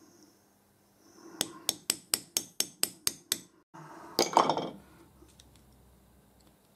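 A hammer tapping a chisel against a lathe live centre to drive a part out, about eight quick metallic taps at roughly four a second, followed a little after four seconds by one short, louder noise.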